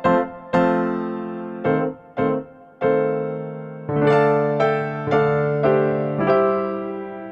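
Background music: a piano or electric piano playing a slow melody of single struck notes, each ringing and fading before the next, with a quicker run of notes near the middle.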